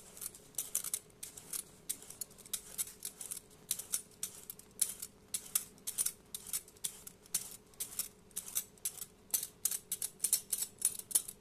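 Metal vegetable peeler scraping the skin off a courgette in short, quick strokes, a few each second.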